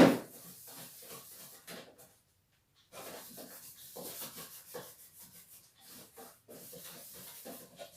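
A sponge scrubbing a refrigerator door in repeated rubbing strokes, with a sharp knock right at the start and a short pause about two seconds in.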